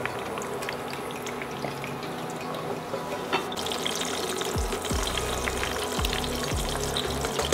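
Salted fish frying in hot oil in a stainless steel pan: a steady sizzle with crackling pops, which grows louder about halfway through as tongs turn the fish.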